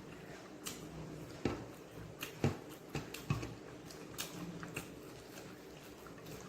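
Someone eating chicken fried rice: irregular wet clicks and smacks of chewing, with a few sharper clicks between about one and a half and three and a half seconds in.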